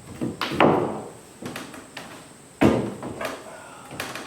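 A series of knocks and clunks from hard objects being handled, with two louder strikes, one about half a second in and one near the middle, and lighter knocks between.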